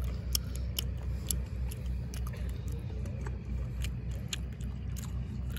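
A steady low rumble with many scattered sharp clicks and taps from a handheld phone being handled close up.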